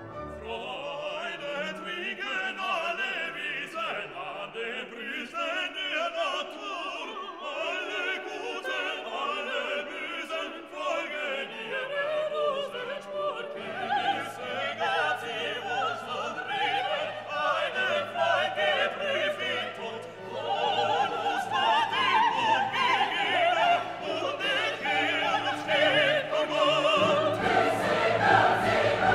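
Classical orchestral music with operatic singing; a low bass line comes in about halfway through, and it grows fuller and louder near the end.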